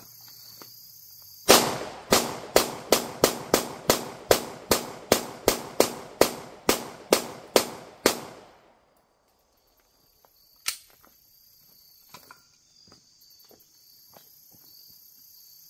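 Glock 19X 9mm pistol firing a fast string of about seventeen full-metal-jacket rounds, two to three shots a second, for about six and a half seconds. A single sharp click follows a couple of seconds later, with crickets chirping steadily behind.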